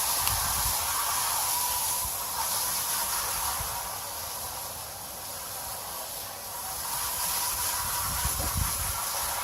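Garden hose spraying water through an air-conditioning condenser coil to rinse it out: a steady hiss that eases off for a few seconds in the middle.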